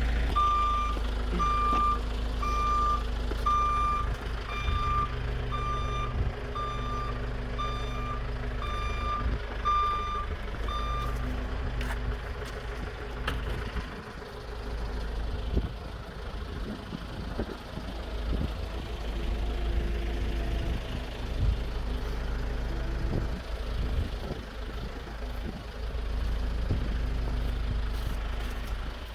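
A vehicle's reversing alarm beeping steadily, about a beep and a half a second, for roughly eleven seconds and then stopping, over the low, steady drone of an idling engine.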